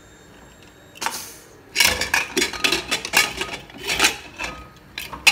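Aluminium pressure cooker lid being unlocked and lifted off: a short hiss about a second in, then a quick run of metal clanks and rattles.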